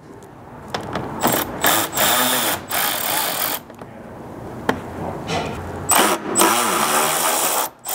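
Power ratchet with a 10 mm socket spinning in repeated whirring bursts, its motor pitch rising and falling, as it backs out wheel-opening screws. The bursts come in two groups, one early and one in the second half.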